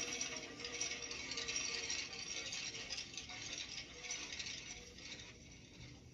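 Drum-kit cymbals ringing on after the last hits and slowly dying away.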